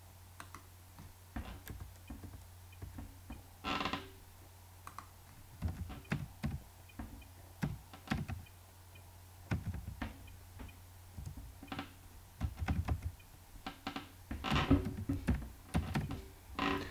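Computer keyboard typing: irregular single keystroke clicks, coming closer together in the later part, over a steady low hum.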